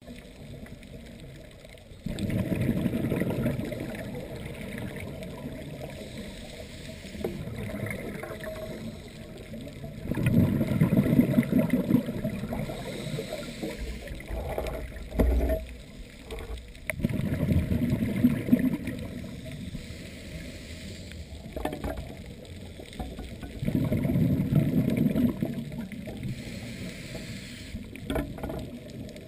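Scuba diver breathing underwater through a regulator: four long rushes of exhaled bubbles, about seven seconds apart, with quieter stretches between them and a low bump about halfway through.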